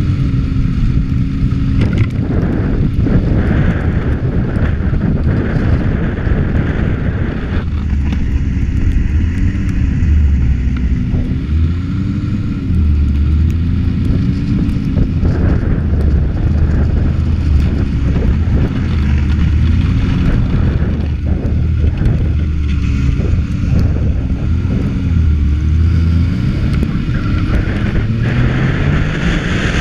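Yamaha four-stroke snowmobile engine running under way, its pitch rising and falling again and again with the throttle and climbing near the end.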